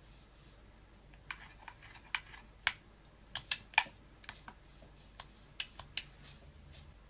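A series of about a dozen light, sharp clicks, irregularly spaced and clustered between about a second and six seconds in.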